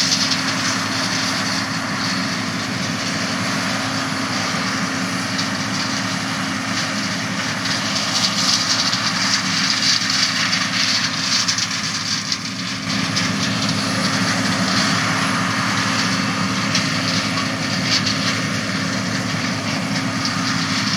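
John Deere 9650 STS combine running steadily while harvesting corn, a constant engine hum under the wide hiss of the threshing machinery.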